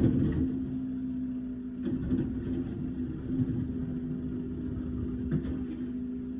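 Garbage truck's diesel engine and hydraulics running with a steady hum while its automated arm lifts, dumps and sets down a wheeled trash cart. A loud knock comes right at the start, and smaller clanks follow about two and five seconds in.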